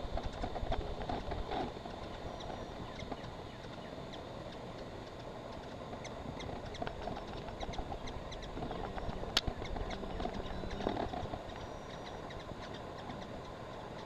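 Hummingbirds' wings humming in brief spells as they hover at the feeders, over a steady outdoor hiss. A single sharp click comes about nine seconds in.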